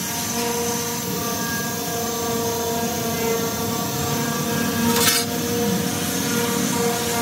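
Hand-held gas torch flame hissing steadily as it is played on steel muffler parts, with one brief sharp crack about five seconds in.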